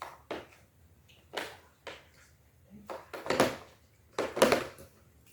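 A series of short handling noises as slime and its plastic tubs are worked by hand, with the two loudest in the second half.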